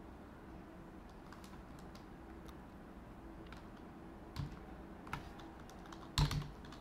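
Scattered keystrokes on a computer keyboard: a few separate taps, the loudest near the end.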